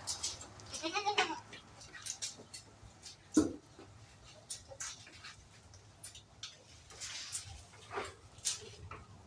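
Goat bleating, a wavering call about a second in, amid scattered clicks and knocks of the animals moving about, with one short loud knock-like sound a little past the middle.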